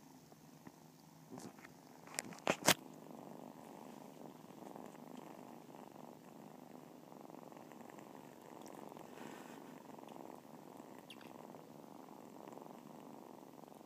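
Several tabby kittens purring together in a steady, continuous rumble. A few sharp clicks cut in about two and a half seconds in.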